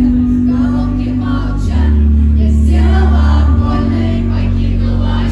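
Woman singing a pop song live into a handheld microphone over a backing track with steady deep bass notes.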